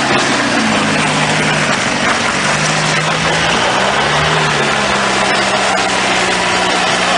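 Jeep Wrangler's engine pulling at low speed as it crawls over rocks, its note rising and falling a few times with the throttle.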